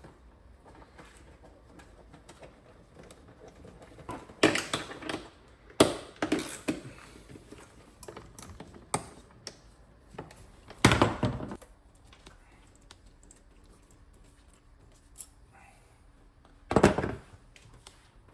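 Scattered clunks and clatters of hard plastic intake parts being unclipped and lifted out as the stock air intake and air filter boxes are removed from the engine bay. There are about half a dozen short knocks, with the loudest clusters around the middle and near the end.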